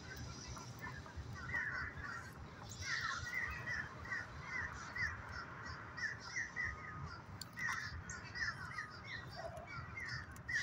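Birds calling continually in many short chirps, several a second, over a low steady rumble.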